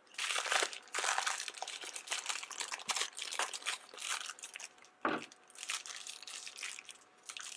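Plastic packaging of a Squinkies blind pack crinkling in the hands as it is handled, in irregular rustling crackles, with a single knock about five seconds in.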